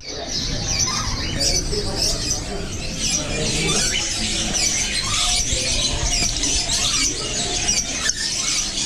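Many caged parrots, lories among them, squawking and screeching over one another in a continuous, overlapping din of high calls.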